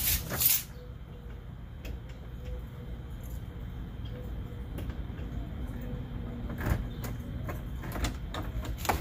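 Keys jangling and clicking in a door's brass deadbolt and doorknob lock as it is unlocked, with a few separate sharp clicks.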